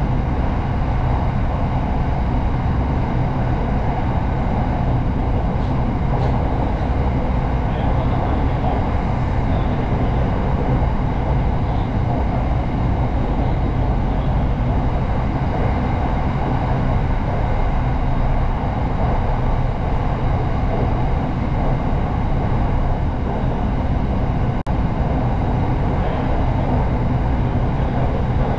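Electric commuter train running steadily at speed, heard from inside the carriage as a constant low rumble with a faint steady hum.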